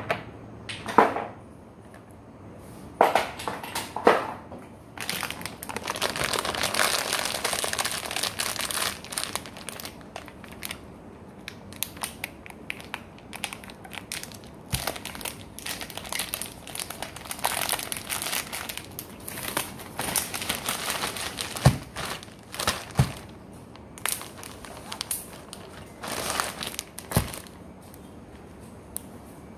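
Kitchen handling noise: crinkling and rustling that is loudest for a few seconds early on, scattered clicks and rattles, and a few sharp knocks later on.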